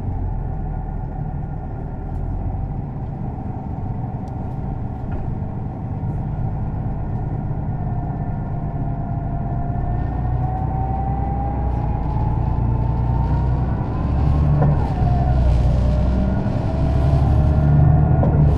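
Setra S 315 NF bus's engine and ZF gearbox accelerating: a low engine rumble with a whine that rises in pitch from about halfway through, drops sharply at a gear change about three-quarters through, then rises again as the bus keeps gaining speed.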